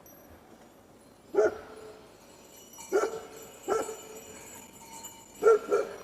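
A dog barking five times in short, separate barks, the last two close together as a pair.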